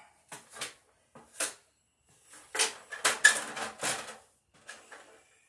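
Knocks and metallic clattering of tools and small hardware being handled: a few separate knocks, then a run of clicks and rattles about halfway through.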